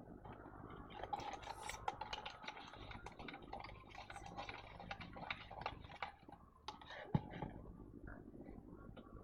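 Close handling noises: a dense run of small clicks, taps and scrapes from about a second in, with one sharper knock about seven seconds in.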